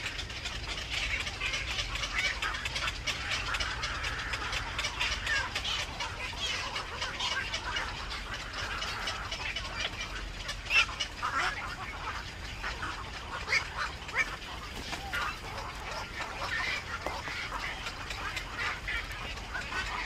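Black-crowned night herons at the nest: a continuous chatter of many short, high, rasping calls, with a few louder single calls standing out past the middle.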